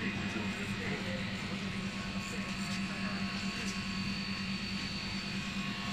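Electric hair clippers running with a steady buzz.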